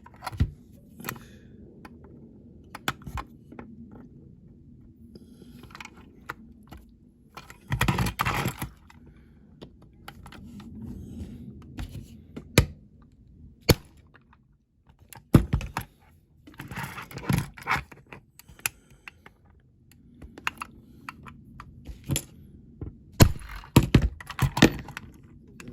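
Small metal tools clicking, tapping and knocking on a diecast toy car's metal baseplate, with a few short scraping bursts, as its rivets are worked on before being drilled out.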